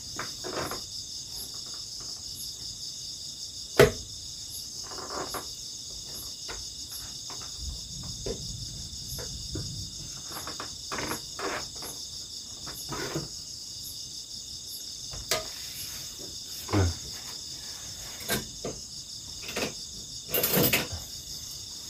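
Rice being scooped out of a metal pot with a serving spoon: scattered scrapes, clinks and knocks against the pot, the sharpest knock about four seconds in. Under it, a steady chorus of crickets.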